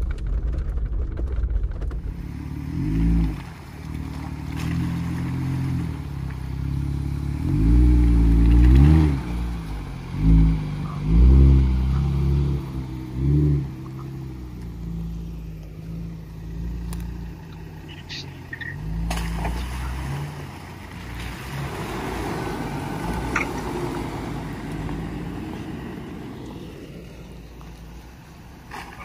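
Jeep Wrangler engine revving in several short bursts, its pitch rising and falling, as it crawls over a rough dirt track. After about fifteen seconds it settles to a quieter, steadier run, with a few sharp clicks.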